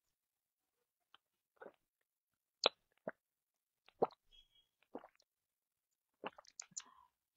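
Faint, scattered clicks and soft taps, irregularly spaced, with a quick cluster of several near the end.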